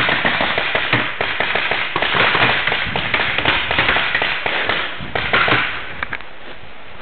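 Paintball markers firing in rapid volleys, sharp pops several a second over a steady hiss, with the shooting tailing off about six seconds in.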